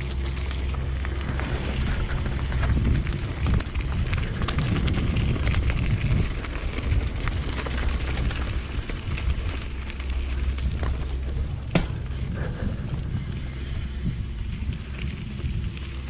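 A mountain bike rolling fast down a dirt trail: tyre noise and rattling over rough ground under a steady low rumble, with one sharp clack late on.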